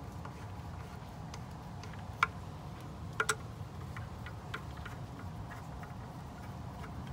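Hand screwdriver driving and tightening screws into the plastic housing of a pool pump's variable speed drive: small scattered ticks and clicks as the tip turns. There is one sharper click about two seconds in and a quick pair about a second later, over a steady low hum.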